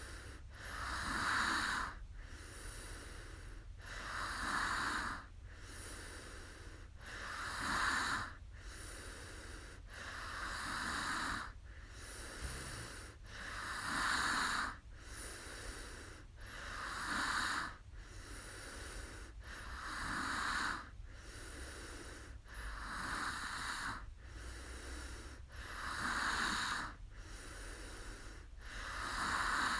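A sleeping woman snoring, a breathy snore about every three seconds in a slow, even rhythm, over a faint low hum.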